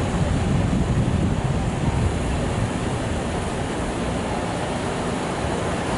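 Steady low rumbling noise of an elevated subway train and street traffic, a little louder in the first two seconds.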